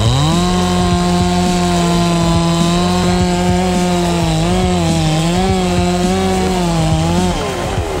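Two-stroke chainsaw revved to full throttle as it cuts into wood. Its high engine note holds steady, dips and wavers a few times under load in the cut, then falls off near the end as the throttle is released.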